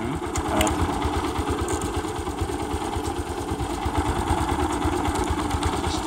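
Motorcycle engine idling steadily, an even low pulsing that does not rise or fall.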